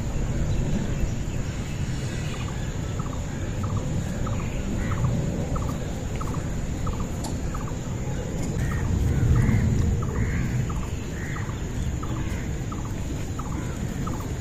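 Short animal calls repeating about twice a second, with a few longer calls in the middle, over a low rumble.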